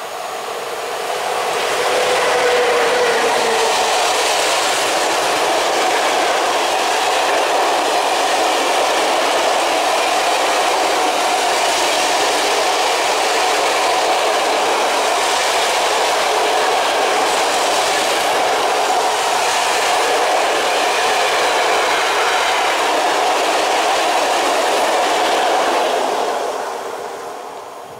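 A long freight train of open coal wagons hauled by an ET22 electric locomotive passes close by: a loud, steady rumble and rattle of wagon wheels on the rails. It builds over the first two seconds and fades away near the end.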